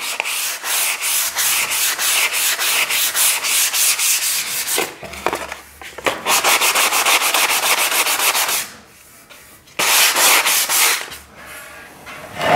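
Sheet of P220 sandpaper rubbed by hand over a high-build-primed tractor wheel rim, in quick back-and-forth strokes about four a second. It comes in three spells with short pauses: a long one, a second one after a brief stop, and a short one near the end.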